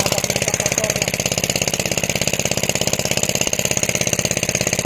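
A small engine running steadily at a constant speed, with an even, rapid beat.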